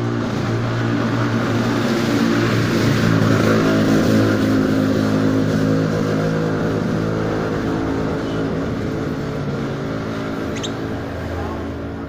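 A motor engine running steadily nearby, its low hum swelling and then fading over several seconds. A lovebird gives a brief high chirp near the end.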